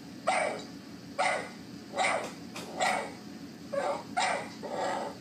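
A dog barking in a steady run, a little over one bark a second, played back from a video rather than barked by the dog in the room.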